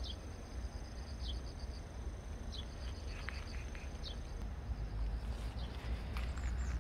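Cricket-like insects calling: a fast, even, high pulsing, with a short falling chirp repeating about every second and a half, over a low rumble.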